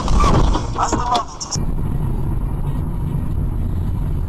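A loud, jumbled burst of noise with a short high-pitched sound about a second in. Then an abrupt switch to the steady low rumble of a car driving, engine and road noise heard from inside the car.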